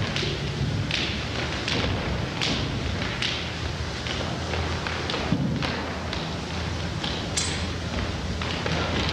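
Regular thuds, about one every three-quarters of a second, over the steady hiss of an old film soundtrack; after about four seconds the thuds become fewer and irregular.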